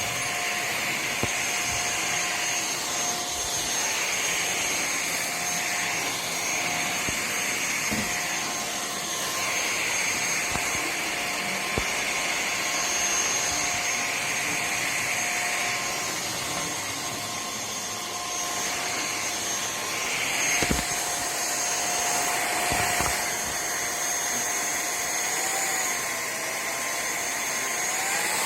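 Cordless vacuum cleaner running steadily, its motor giving a constant whine over the airflow noise, with a few light knocks of the head on the floor; near the end the motor's pitch dips and comes back up.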